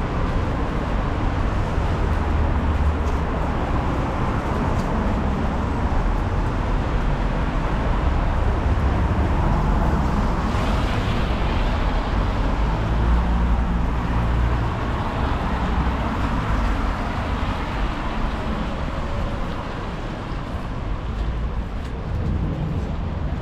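City street traffic, with vehicles passing and one swelling past about ten seconds in, while wind rumbles on the microphone.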